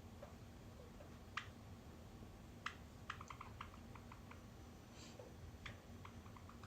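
Faint, sharp clicks and light taps on a hard surface, single ones about a second and a half and two and a half seconds in, then a quick run of them about three to four seconds in, over quiet room tone.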